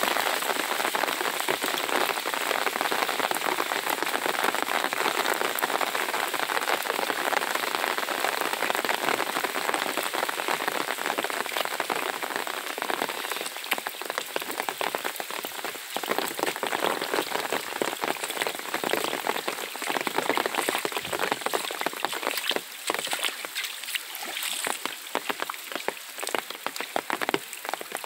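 Rain falling on wet paving and standing water, a dense steady hiss that thins about halfway through, with single drops then standing out.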